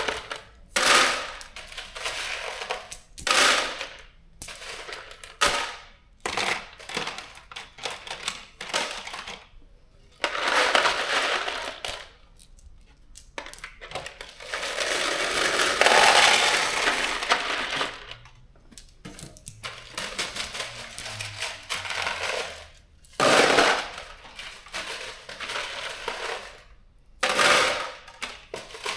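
Handfuls of metal bolts and nuts clinking and rattling as they are dropped into kit containers, in repeated short bursts, with one longer pour a little past halfway.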